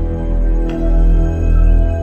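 Music: sustained chords held over a deep bass drone.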